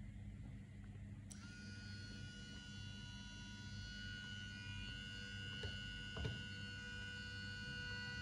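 Brushed DC motor switching on about a second in and then running steadily with a high, even whine, over a low steady hum.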